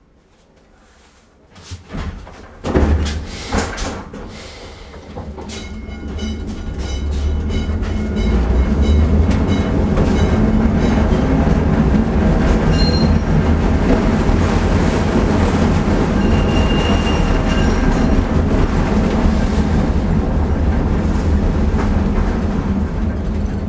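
Electric tram 9591 'l'Oiseau Bleu' setting off: a few loud knocks, then the running noise of its wheels on the rails builds up with regular rail clicks into a steady loud rumble.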